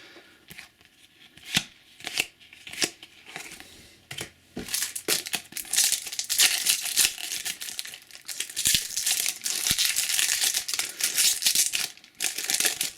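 Trading-card packet being handled and torn open: a few separate rustles, then several seconds of dense crinkling and ripping of the wrapper.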